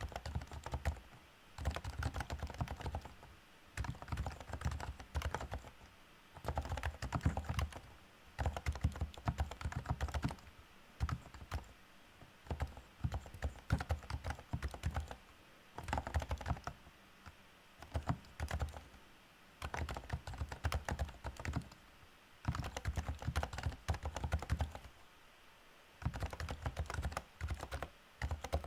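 Typing on a REALFORCE R2SA-US4M keyboard with Topre electrostatic capacitive key switches. It comes in runs of rapid keystrokes lasting a second or two, broken by short pauses.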